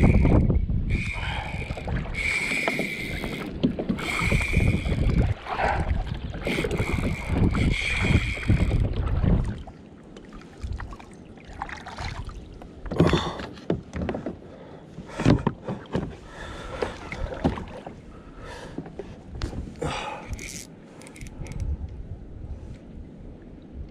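Fishing reel's drag buzzing in several bursts as a big giant herring takes line, over a heavy low rumble of kayak and water noise. After about ten seconds the drag stops and only scattered knocks and clicks are heard.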